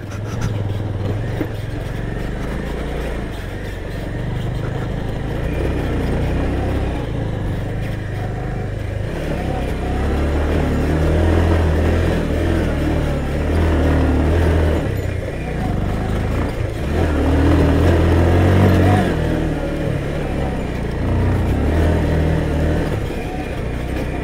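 Off-road motorcycle engine running while being ridden, its throttle swelling and easing off several times, loudest around the middle and again a little later.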